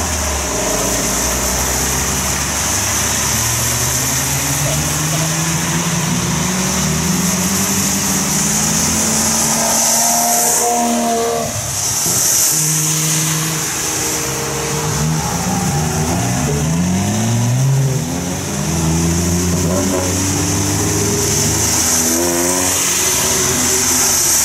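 Several car engines accelerating past one after another on a wet road, their notes rising in pitch as each car pulls away, with overlapping passes through the middle and near the end. A steady hiss of rain and tyres on wet tarmac runs underneath.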